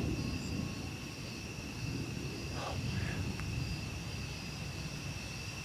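Low rumble of rolling thunder from a nearby thunderstorm, continuing without a break, with insects trilling steadily at a high pitch underneath.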